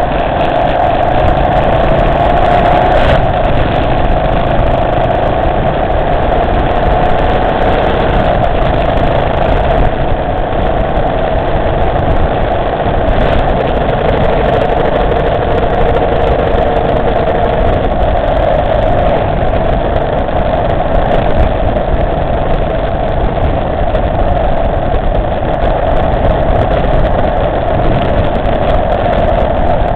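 Motorcycle engine running steadily while riding along at road speed, under an even rush of wind and road noise on the onboard microphone.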